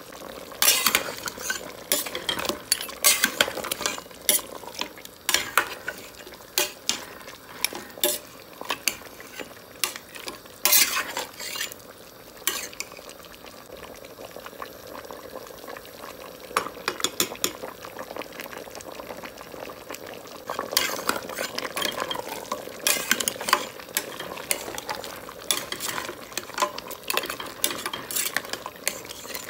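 A steel spoon stirring pieces of mutton in a cooking pot, with irregular clinks and scrapes against the pot in bursts and a quieter lull about midway. Under it is a faint steady sizzle of the meat frying.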